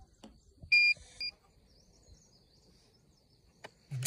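Fusion splicer beeping: a longer beep followed by a short one as the splice cycle ends, with the splice-loss estimate shown on its screen. A sharp click near the end.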